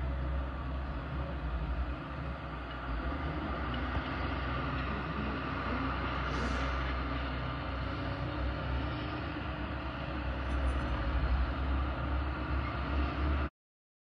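Steady low rumble with a hiss over it: outdoor ambient noise in a town at night, with no distinct shots or voices standing out. It cuts off suddenly near the end.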